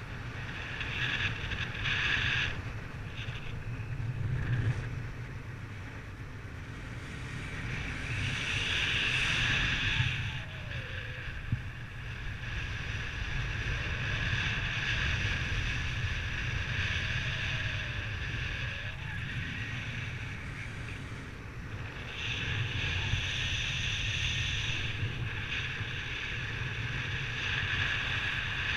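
Wind rushing over the microphone, swelling and easing in long gusts, loudest about eight to ten seconds in and again over the last several seconds.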